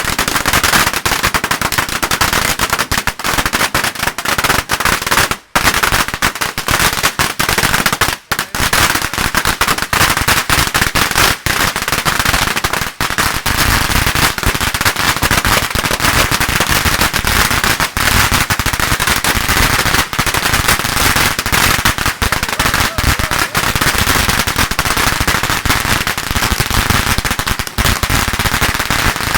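Long strings of firecrackers going off in a dense, continuous rapid crackle of bangs, with two brief breaks about five and eight seconds in.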